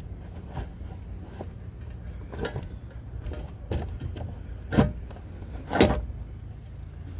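Scattered knocks, clicks and scrapes of an intercooler being manoeuvred up past the radiator under a car, with two louder bumps near the end, over a steady low hum.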